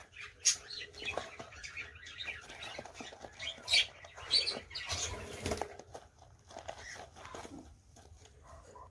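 Small cage birds chirping in short, scattered calls, with wing flapping and rustling. A few sharper chirps stand out, and a burst of rustle comes about five seconds in.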